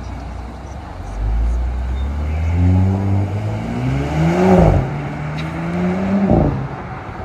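2018 Audi S5 Sportback's turbocharged V6 accelerating hard: the engine note climbs, falls sharply about four and a half seconds in, climbs again and falls off near the end.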